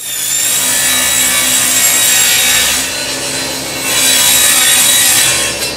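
A power saw cutting through a plywood sheet: a loud, steady whine and rasp that eases briefly about three seconds in, then picks up again and stops just before the end.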